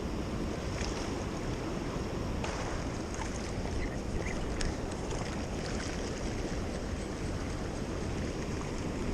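Steady rush of water from a lake spillway running strongly, with a few faint clicks.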